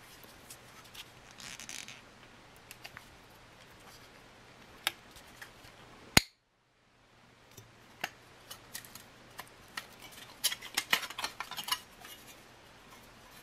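Thin metal tear-strip band being peeled off a sealed ration tin: small scattered metallic clicks and crinkles, a sharper click about six seconds in, and a quick run of clicks and crackles near the end as the strip comes away.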